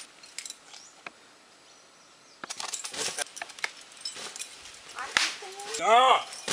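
A climber moving on a rock slab: scattered sharp clicks and scuffs of shoes and hands on the stone and gear on the harness clinking, with a quiet pause in the middle. Near the end a person's voice calls out briefly.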